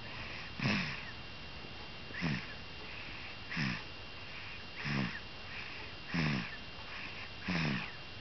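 Baby snoring in sleep: six short snores, one about every second and a half, each falling in pitch.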